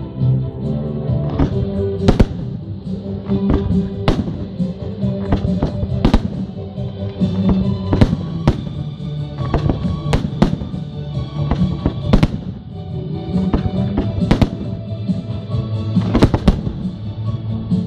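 Fireworks bursting in an irregular barrage of sharp bangs, several of them much louder, over steady music.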